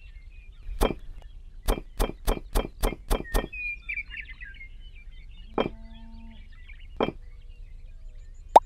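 Sharp clicks of tiny wooden bricks being set down one after another on a miniature cement pond rim: a quick run of about eight, then two more spaced a second or so apart. Faint bird chirps sound behind them, and a loud pitched pop comes right at the end.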